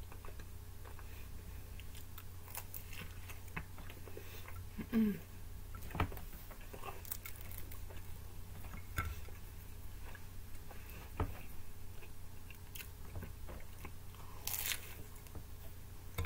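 Close-up chewing and biting of reheated pizza with a crisp, well-done crust, with scattered crunchy clicks and wet mouth sounds. There is a short low hum about five seconds in and a brief breathy hiss near the end.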